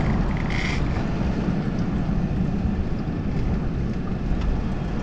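Wind buffeting the microphone, a steady low rumble, with a short higher hiss just under a second in.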